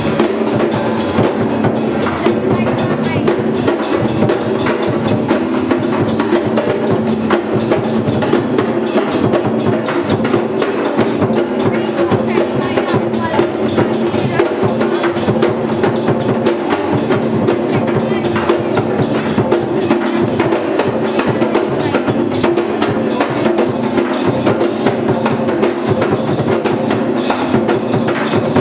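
Ensemble of hand drums playing a fast, steady, dense rhythm, the strokes running together without a break, with sharp wooden clicks on top.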